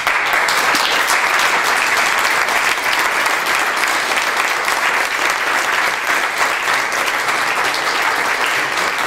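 A roomful of people applauding: dense clapping that starts abruptly and keeps going, easing slightly near the end.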